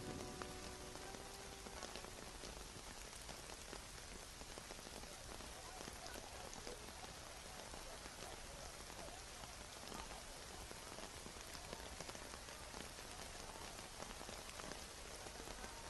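Steady rain falling: an even hiss flecked with the fine patter of drops.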